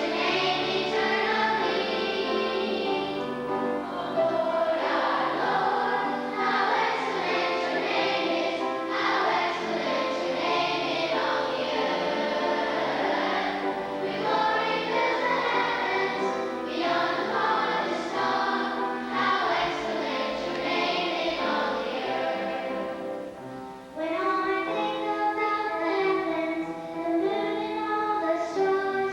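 A choir singing with instrumental accompaniment, the voices including children's. The music breaks off briefly about 24 seconds in and then starts again.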